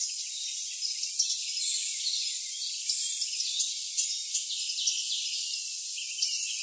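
Crickets trilling in a dense, steady chorus with songbirds chirping and twittering over it. The sound is thin and high-pitched, with all low sound filtered out.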